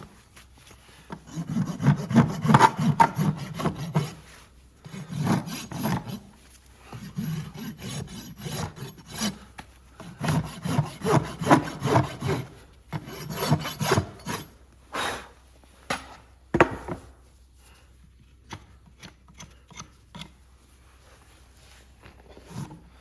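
Farrier's rasp filing a horse's hoof in quick repeated strokes, in several runs with short pauses. Over the last third the rasping stops, leaving a few scattered knocks.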